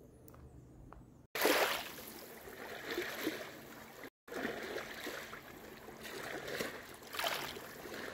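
Small waves lapping and splashing at a lakeshore, swelling and falling every few seconds. The first second or so is quiet with a few faint clicks before the water sound cuts in suddenly.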